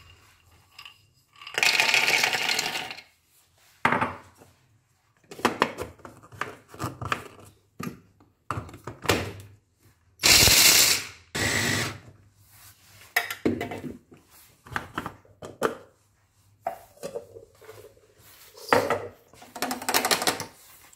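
Dried blanched almonds rattle into a small electric blade grinder, then handling clicks and knocks follow. About ten seconds in, the grinder runs for a short burst, grinding the almonds to almond meal. Near the end a spoon scrapes the ground almonds in the grinder's cup.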